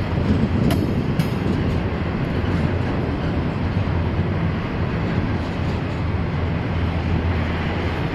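Union Pacific double-stack intermodal freight cars rolling past, a steady rumble of steel wheels on rail, with a couple of brief sharp clicks about a second in.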